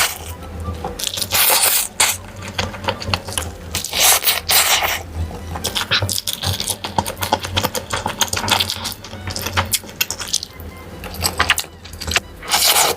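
Close-miked eating sounds: chewing and slurping food, with many short clicks and smacks and a few louder noisy bursts.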